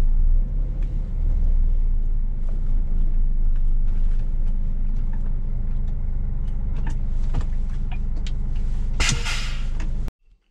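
Scania S500 truck's diesel engine running at low speed, heard from inside the cab, with a short loud hiss of compressed air from the air brakes about nine seconds in.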